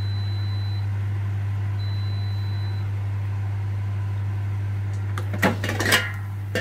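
Air fryer's finished-cooking alert beeping twice, long high-pitched beeps about two seconds apart, over a steady low hum. About five seconds in, the basket drawer is pulled out with a short clatter, the loudest sound.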